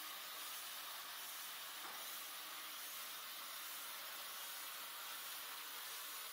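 MKS600 band sawmill running as its saw head moves along a log: a steady hiss with a faint hum underneath.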